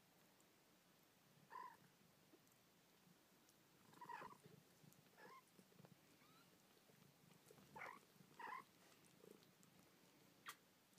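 Faint, steady purring from a mother cat with her newborn kittens, with about five short, high mews from the kittens. A single sharp tick comes near the end.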